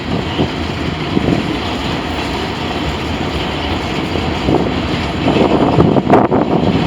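Freight train rolling past, a loud steady rumble.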